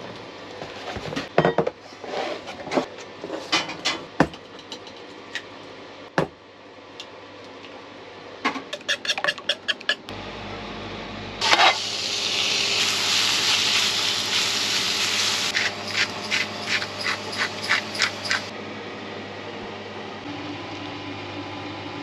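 Kitchen cooking sounds: clicks and knocks of dishes, containers and utensils, then just past halfway a knock and a few seconds of sizzling as spinach cooks in a hot cast iron skillet, followed by a quick run of light clicks.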